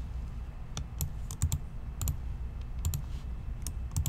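Computer keyboard and mouse clicks: about a dozen short, sharp clicks spread unevenly, with a low hum underneath.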